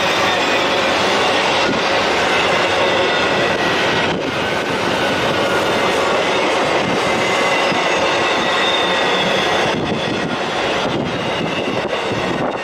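Long intermodal freight train rolling past: a steady rumble and clatter of the cars' wheels on the rails, with faint high squealing tones, easing slightly about ten seconds in.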